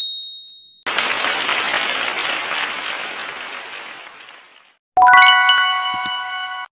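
Quiz-show sound effects for a correct answer: a short high ding, then a burst of recorded applause that fades out over about four seconds. About five seconds in, a bright chiming jingle starts.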